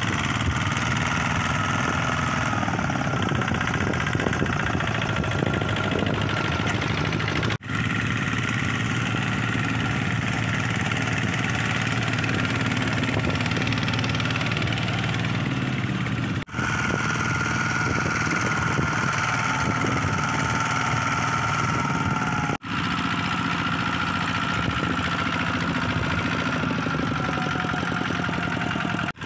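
Single-cylinder diesel engine of a Kubota ZT155 two-wheel walking tractor chugging steadily under load as it pulls a trailer of rice sacks through mud. The sound is broken by three brief gaps.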